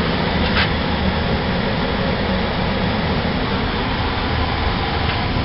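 Newly installed heat pump air handler running, its blower fan giving a steady rush of air over a low hum.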